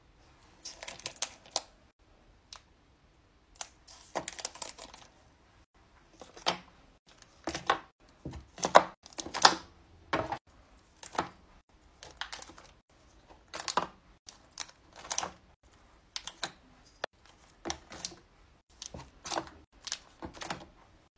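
Plastic-wrapped wax melt packs being handled and set into a plastic storage tub: a run of separate light plastic clicks and taps, with some crinkling of the cellophane wrappers about one and four seconds in.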